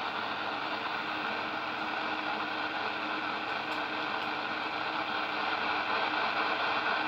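Super Jopix 2000 CB radio's speaker hissing steadily with receiver noise, a very weak injected test signal near the limit of its sensitivity barely rising above the static. It grows slightly louder about five seconds in.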